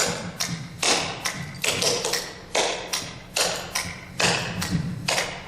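Clogging shoe taps striking a hard floor in quick clusters of sharp clicks: double steps and toe touches of a repeated clogging step. The taps stop about five seconds in.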